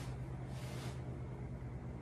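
Steady low hum of room tone, with a faint, short rustle about half a second in.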